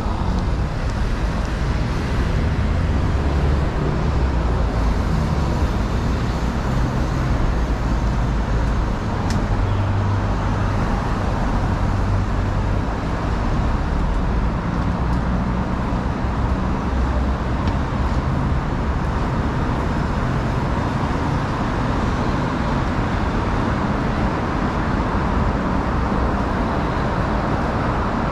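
Steady city street traffic: cars passing and engines running, with a heavy low rumble.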